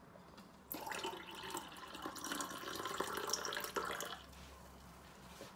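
Liquid poured into a glass mug, filling it with tea, for about three seconds, starting just under a second in.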